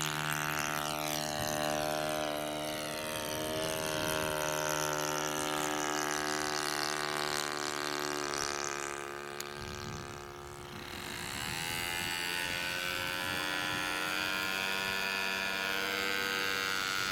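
A radio-controlled model aircraft's engine droning steadily in flight, dipping and dropping in pitch about ten seconds in as it turns or passes, then steady again.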